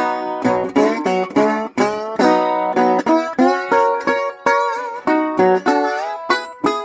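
Instrumental music played on a plucked string instrument: notes picked in quick succession, a few of them bent or slid in pitch.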